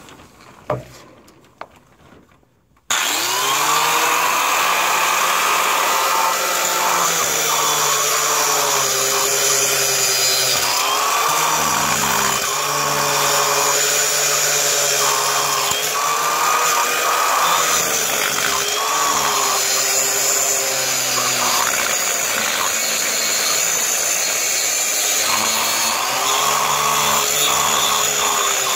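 Angle grinder switched on about three seconds in, then grinding an overhead surface. Its motor pitch dips and recovers as it is pressed into the work.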